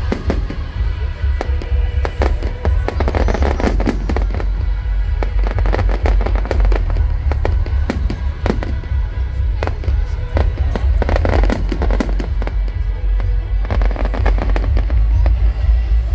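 Fireworks display going off: a dense, irregular string of bangs and crackles, thickest in a few flurries, over a steady low rumble.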